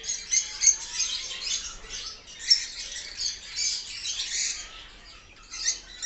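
Many caged birds, lovebirds among them, chattering at once: a dense, unbroken stream of shrill chirps and squawks.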